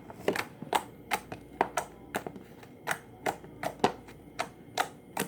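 Fluffy slime being poked and pressed with fingers in its container, giving a string of sharp clicks and pops, irregular, roughly two or three a second.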